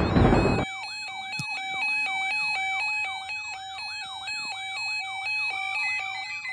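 Weather alert radio's electronic siren alarm sounding as a severe thunderstorm watch comes in: a warbling tone that sweeps about three times a second over a steady tone, with short repeated beeps joining near the end. A loud noisy sound cuts off about half a second in.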